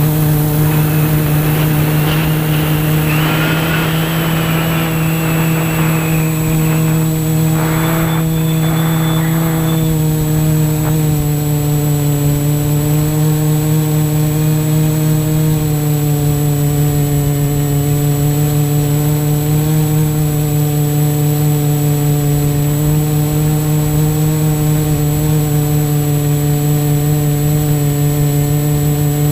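Quadcopter drone in flight: its motors and propellers make a steady buzzing hum that holds nearly level in pitch, with a few faint higher sounds over it in the first third.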